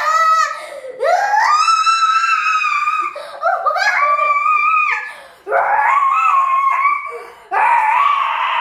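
A girl's voice singing very high, long held notes close to squealing, about four in a row, each swooping up at its start. It is a comic imitation of a pop singer's high notes.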